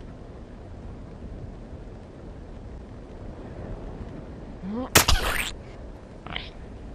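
A low, steady rumbling haze, then about five seconds in a short rising pitch that leads straight into a sudden loud sound, with a fainter, shorter one about a second later.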